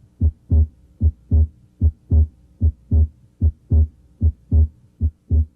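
Heart sounds as heard at an auscultation point: a steady lub-dub, the first and second heart sounds coming in pairs, about 75 beats a minute.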